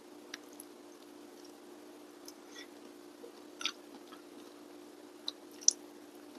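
A person quietly chewing a hand-eaten mouthful of rice and vegetables, with a few short wet clicks and smacks scattered through, over a steady low hum.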